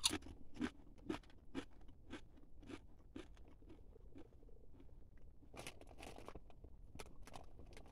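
Ruffles ridged potato chips being chewed: quiet crunching at about two bites a second. About five and a half seconds in, a louder cluster of crinkles, which fits the chip bag being handled.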